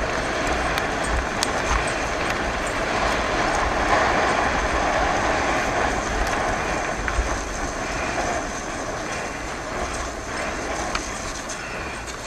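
Bicycle rolling fast over a wet gravel road: steady tyre rumble and rattle, with irregular low wind buffeting on the handlebar-mounted camera's microphone.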